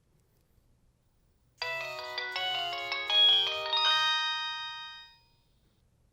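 Nokia 3220 mobile phone's built-in polyphonic ringtone playing through its loudspeaker. A short, bright melody with several notes sounding at once starts about a second and a half in, then ends in held notes that fade out about five seconds in.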